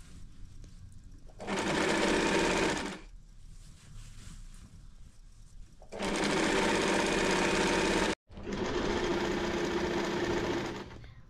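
Portable electric sewing machine stitching fabric in three runs of about one and a half to two and a half seconds each. It stops and starts between runs.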